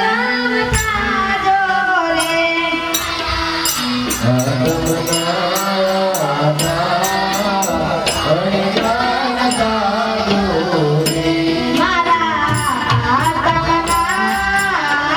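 Devotional bhajan music: singing over a steady low drone, with hand percussion clicking in a regular beat.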